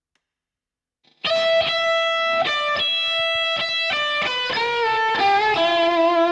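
About a second of silence, then a solo electric guitar opening a rock song: a high note picked over and over, then a line of notes stepping downward.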